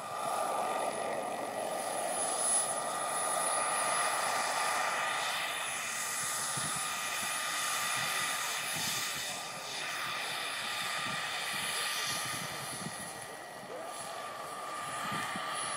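Radio-controlled scale Huey (Bell UH-1) model helicopter flying, a steady high whine from its drive and rotors.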